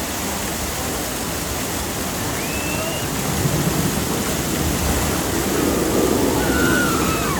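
Steady rushing of water, swelling louder a few seconds in, with faint distant voices.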